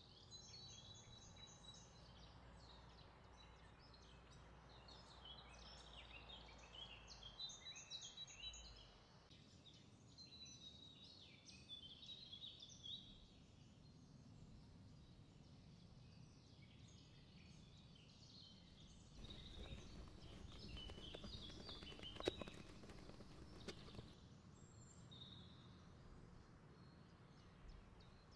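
Faint chirping of birds in the background, many short high notes coming and going. About two-thirds through there is a few-second stretch of soft scraping and wet sounds from a silicone spatula folding whipped cream in a glass bowl.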